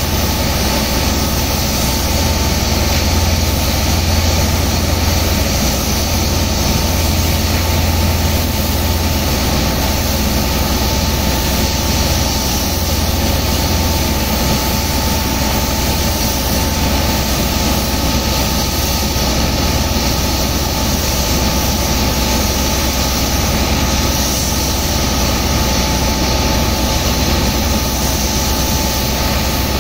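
A heavy pump engine drones steadily, with a constant tone, under the hiss of high-pressure water jets blasting into wet sand to loosen it for pumping.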